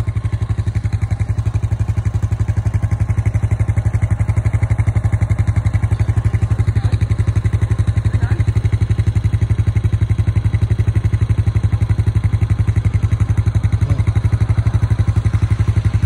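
Engine idling steadily, a loud, even, rapid pulse of about a dozen beats a second, typical of the snowplough vehicle left running.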